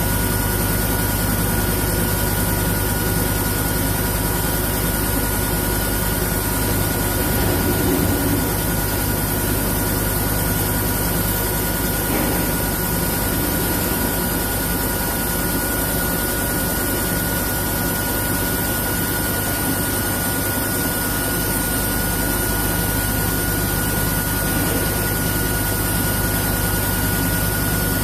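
Milling cutter on a CNC boring machine rough-milling a titanium bar under flood coolant: a steady machining drone with a constant high-pitched whine and coolant splashing.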